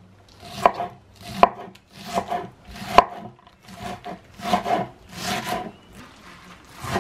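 Chef's knife chopping Swiss chard stems on a wooden cutting board. Uneven knocks of the blade on the board, about one a second, with softer scraping cuts between them.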